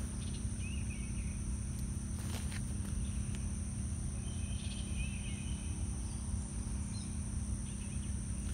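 Outdoor background of steady, high-pitched insect drone, with a few faint short bird chirps, some faint clicks and a low steady hum underneath.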